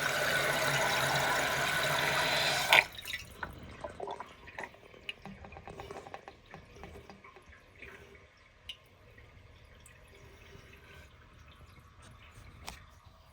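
Toilet fill valve hissing as the tank refills, then shutting off sharply with a click about three seconds in, followed by scattered drips, trickles and small gurgles that fade away.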